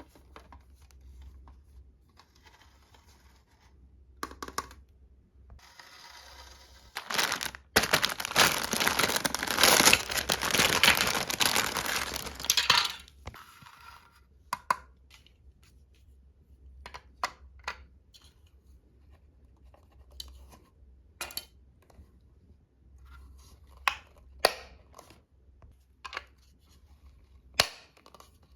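Toy packaging being unboxed by hand: a few seconds of loud crinkling and tearing, then scattered light clicks and taps as small toy pieces are handled.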